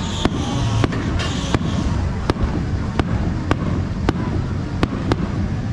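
Fireworks going off in an irregular run of sharp bangs, about two a second, over a steady low rumble.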